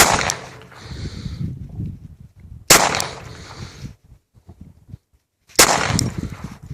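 Three pistol shots from a Kahr CM .40 S&W micro pistol firing SinterFire frangible rounds, evenly spaced about three seconds apart. Each is a sharp crack that rings out for about a second.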